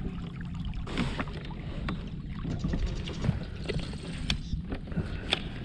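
Water lapping against a plastic fishing kayak's hull, with a low wind rumble on the microphone and a few scattered light knocks and clicks.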